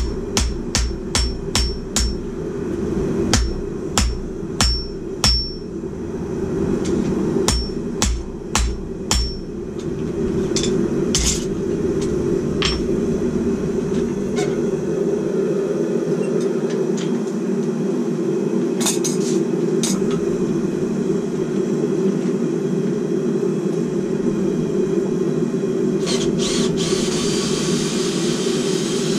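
Hand hammer striking on a steel anvil, about two blows a second, each with a short high ring, for the first nine seconds, then a few scattered blows before it stops. A steady low drone runs underneath, and a brief hiss comes near the end.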